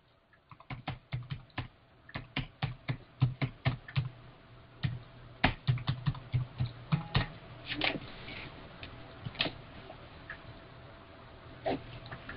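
Typing on a computer keyboard: a run of irregular key clicks that thins out in the second half, over a faint low hum.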